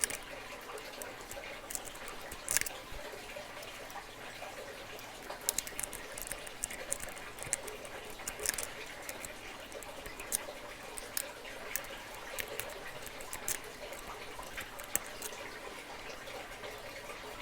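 Picks and a tension wrench working a Master Lock padlock: faint, irregular small clicks and scratches as the pick sets the pins.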